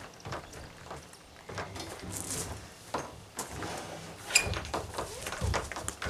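Plastic kayak knocking and scraping against a metal rack as it is lifted and set upright into place, with a sharp metallic clink and brief ring about four and a half seconds in and dull thumps after it.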